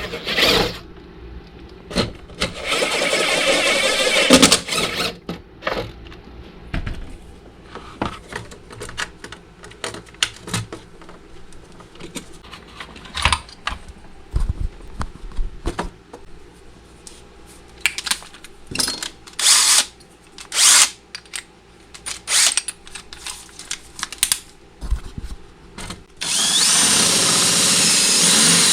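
Power drill running in two steady runs of a couple of seconds, about two seconds in and again near the end, boring to widen the opening for the wires. In between come scattered short clicks and knocks of handling.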